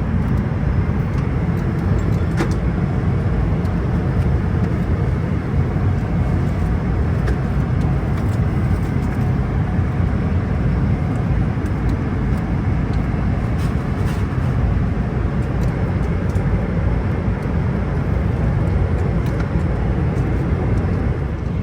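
Steady cabin noise of a Boeing 777-300ER in flight: an even, deep rush of airflow and GE90 engines.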